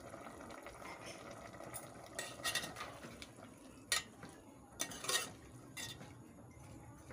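A metal spoon stirring a simmering potato and pointed-gourd curry in a metal pot, scraping and clinking against the pot several times.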